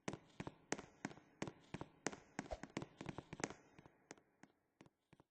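A string of firecrackers going off: a rapid, irregular run of sharp pops and cracks, several a second, that thins out and nearly stops near the end.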